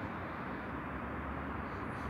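Steady background noise: an even hiss and low rumble with no distinct events.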